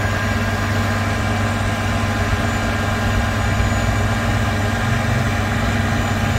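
Fire engine idling, a steady low engine hum.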